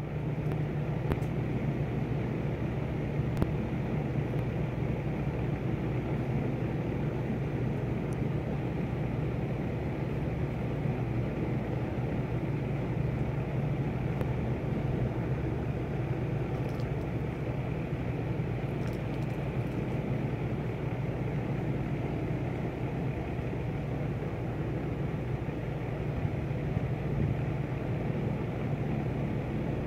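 Steady low rumble of outdoor background noise, even throughout, with a few faint ticks in the first few seconds.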